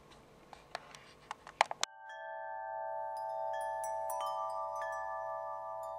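Fingernails tapping on a small box, a quick run of sharp clicks that grow louder. About two seconds in, this gives way abruptly to gentle chiming music with several held, bell-like notes.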